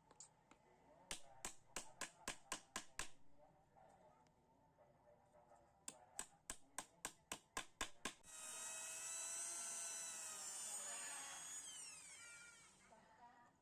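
Two quick runs of hammer blows on wood, about four or five a second, then an electric power tool running with a high whine for about three seconds before it is released and winds down, falling in pitch.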